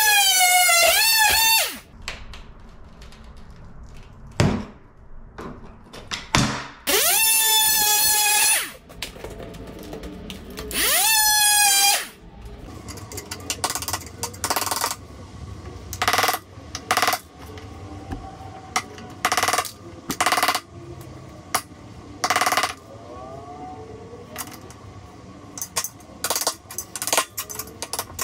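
A handheld Ryobi cordless power tool whines in three short runs, the later two spinning up in pitch as they start, while working at a cracked tile edge. It is followed by a series of short, separate taps and scrapes from hand tools working at the broken tile.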